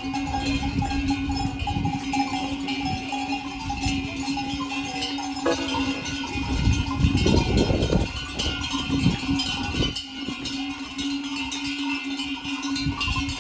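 Clanking bells, such as the bells on pack animals or livestock, ringing irregularly over a steady low tone, with rumbling low down.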